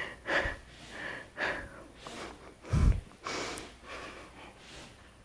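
A woman breathing hard from exertion during TRX hamstring pulls: a string of short, noisy breaths in and out, with one louder, deeper puff about three seconds in.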